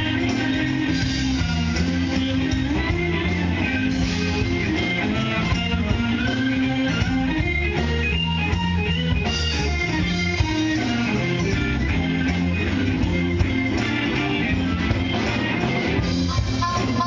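Live rock band playing: electric guitar over a walking bass line and a drum kit with steady cymbal ticking.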